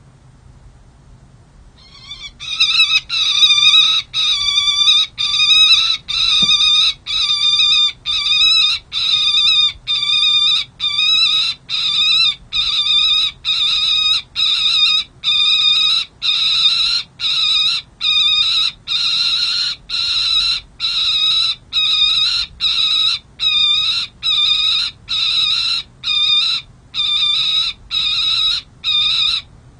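Juvenile peregrine falcon calling: a long, loud series of harsh, evenly repeated notes, about one and a half a second, starting about two seconds in and stopping just before the end. It is calling in protest at an adult falcon perched close by.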